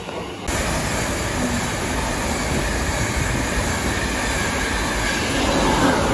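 LNER InterCity 225 train, Mark 4 coaches and a Class 91 electric locomotive, passing close by along the platform: a steady rush of wheels on rails that begins abruptly about half a second in and grows louder near the end as the locomotive goes by.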